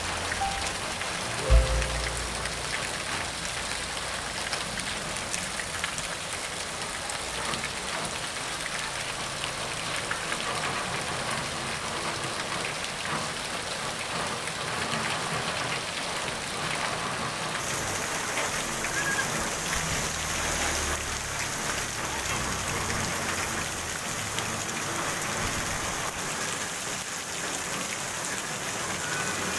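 Heavy rain falling steadily on a wet asphalt street, with runoff pouring off a roof edge close by. A short low thump about a second and a half in, and the hiss grows brighter about two-thirds of the way through.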